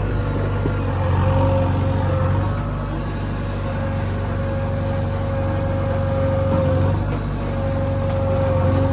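Diesel engine of a JCB 3DX backhoe loader running steadily under work, with a steady whine on top of the low rumble.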